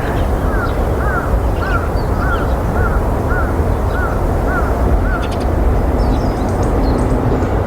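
A bird calling in a steady series of short notes that each rise and fall, a little more than one every half second, stopping about five seconds in. A steady low rumble of background noise runs under it.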